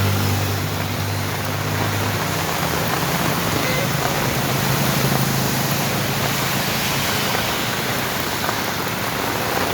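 Heavy rain falling steadily as a loud, even hiss, with a low steady hum underneath.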